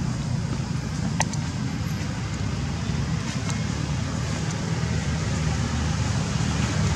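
Steady low rumble of background noise, with one sharp click about a second in.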